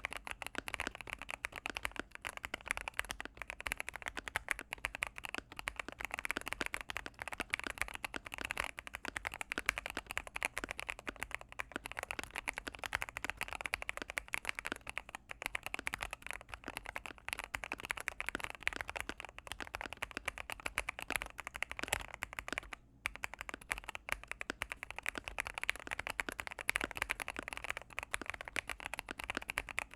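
Steady, fast typing on a mechanical keyboard with Gateron Pro Yellow linear switches, in a gasket-mounted Akko MOD005 case with EVA gaskets and polyfill dampening, C3 Equalz stabilizers and Akko ASA-profile keycaps. A dense run of keystrokes, with one brief pause about three-quarters of the way through.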